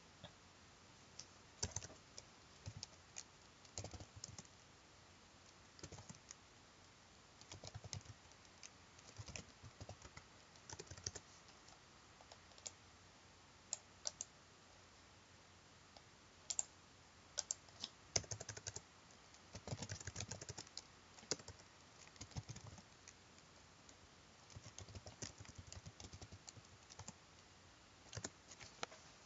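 Computer keyboard being typed on in short, irregular bursts of keystrokes, with a denser run of typing about two-thirds of the way through.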